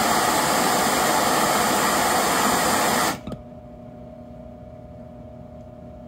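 Handheld gas torch burning with a steady hiss while heating a copper pipe joint for soldering. It stops suddenly about three seconds in, leaving only a faint steady hum.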